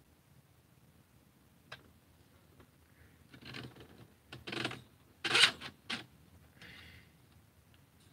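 Hands handling and fitting the plastic parts of a Nerf blaster: a faint click, then several short scrapes and rubs, the loudest about five and a half seconds in.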